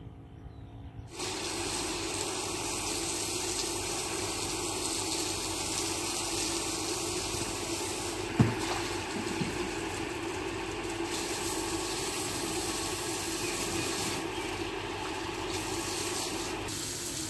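Water spraying from a garden hose onto a wet brick floor: a steady hiss that starts about a second in, with a single knock about halfway through.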